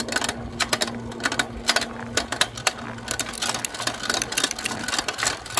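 A bicycle rolling along a paved path, rattling and clicking: sharp, irregular clicks several times a second over a low steady hum.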